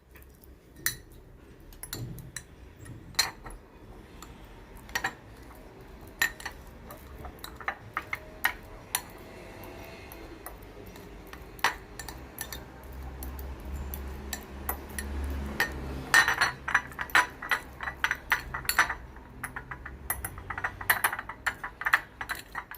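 A fork mashing boiled, peeled garlic cloves in a dish, its tines clinking against the dish in scattered taps that quicken into fast runs of clinks in the last third.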